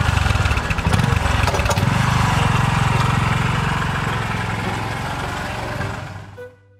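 Motorcycle engine running as the bike pulls away. The sound fades as it rides off and dies out near the end.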